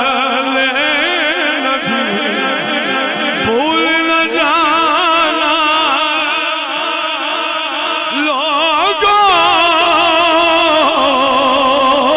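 A man's solo voice singing a devotional Urdu kalaam through a microphone, holding long notes with wide vibrato and sliding runs between them.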